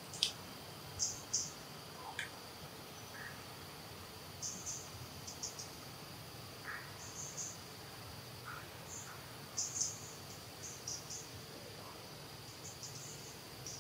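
Ambient insects: a steady, high drone throughout, with short high chirps scattered over it in small clusters.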